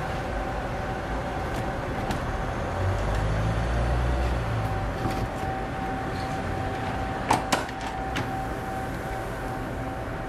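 Steady background hum with a thin steady whine while a rotating waffle iron is worked. A low rumble swells briefly a few seconds in, and two sharp clicks come about seven seconds in from the iron's metal lid and handle.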